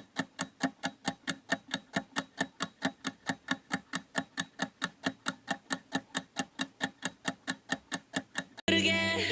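Fast, even ticking, about four to five ticks a second, that stops suddenly shortly before the end when music with singing comes in.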